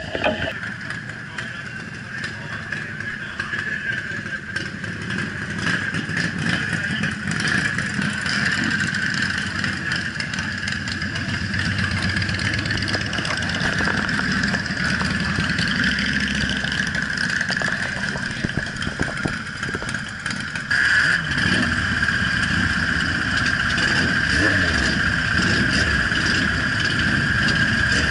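Motorcycle engines running in a crowd of bikes, idling and riding slowly past, with a steady high hum over them. The engine sound jumps up suddenly about two-thirds of the way through.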